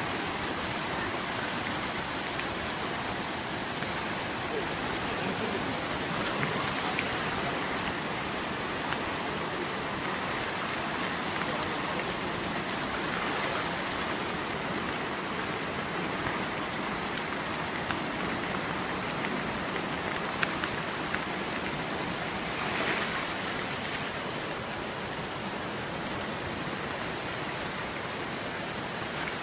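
Steady rushing noise of the river in flood, swollen over both banks, mixed with falling rain, with a few faint sharp taps of drops.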